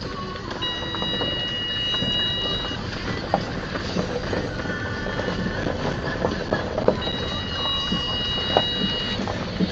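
Car driving slowly over a rough gravel track, heard from inside the cabin: steady tyre and body rumble with scattered knocks as it bumps over stones. A steady high squeal sounds twice, each time for about two seconds, once just after the start and again about seven seconds in.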